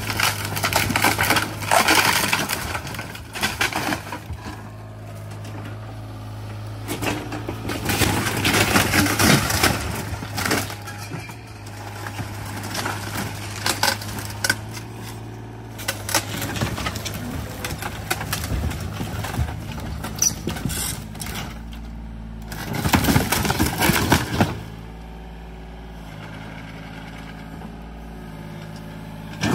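Yanmar mini excavator's diesel engine running steadily while the garage's wooden wall and siding crack, splinter and crash under the bucket. Loud bursts of breaking come about a second in, around eight seconds in, and again around twenty-three seconds in. The engine's hum drops lower near the end.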